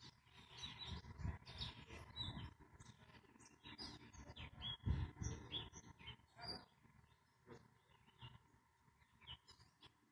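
Birds chirping and calling in short, scattered notes, over bursts of low rumbling noise that are loudest about a second and about five seconds in.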